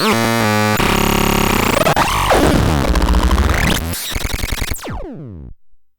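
Electronic sound effects from a novelty pooping-devil toy's sound chip: a loud, chaotic jumble of synthesized tones and rising and falling sweeps that cuts off suddenly near the end.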